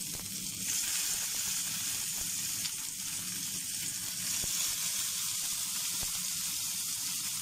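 Marinated chicken thighs sizzling on a hot grill pan as more pieces are laid down. The sizzle gets louder about a second in, with a few faint ticks.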